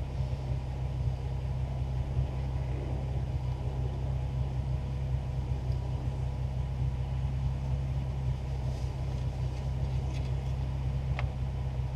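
Steady low hum of an idling car engine, with a light click near the end.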